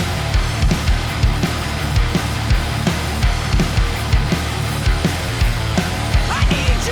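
Loud rock music: distorted electric guitar, bass and drums, with the kick drum hitting in a steady driving beat. A wavering melodic line comes in near the end.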